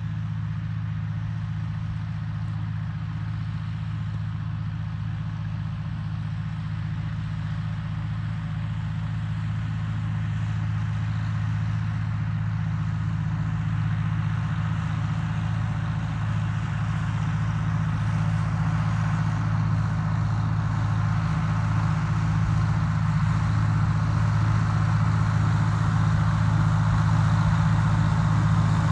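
1950 Farmall M tractor's four-cylinder gasoline engine running at a steady speed as the tractor drives, growing gradually louder as it comes closer.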